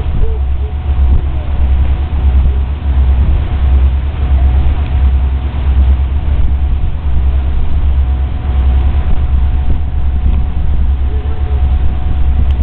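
Steady low rumble on the deck of a river tour boat underway, with a faint steady hum above it.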